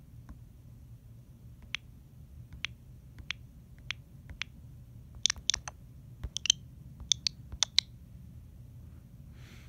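A series of sharp, irregular clicks, single at first and then in quick clusters of three or four, over a low steady hum. A short soft rustle comes near the end.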